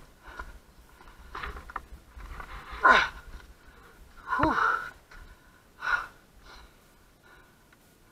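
A person breathing hard and out of breath, heavy gasping breaths about every second and a half, the loudest two in the middle, growing weaker near the end.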